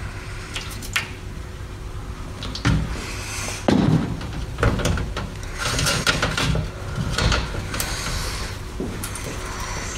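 Hands handling and tearing apart a large cooked seafood piece on a stainless steel tray: scattered knocks and soft squishy tearing, with one louder thump about four seconds in.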